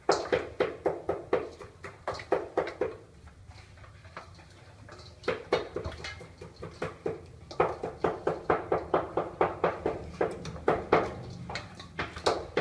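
Cleaver chopping on a round wooden chopping board in quick, steady strokes, about four a second, pausing for a couple of seconds in the middle before carrying on.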